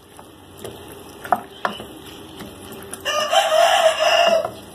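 A rooster crows once, about three seconds in, one long call lasting about a second and a half. Before it, a wooden spoon taps and scrapes a few times against the cooking pan as the curry is stirred.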